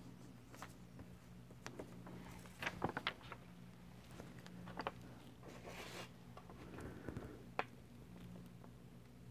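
Faint handling of cardstock on a cutting mat: sheets sliding and rustling, with a few light taps and clicks, a quick cluster of them about three seconds in, as a patterned layer is laid onto the white card base.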